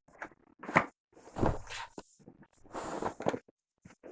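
Handling noise from a hard-to-open product box being worked at: a few irregular bursts of rustling, scraping and light knocks of packaging.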